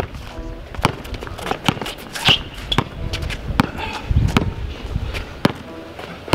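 Basketball dribbled on an asphalt court, a string of uneven bounces mixed with sneaker footsteps.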